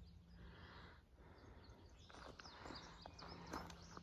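Faint bird chirps, short and high-pitched, over near silence, starting about halfway through.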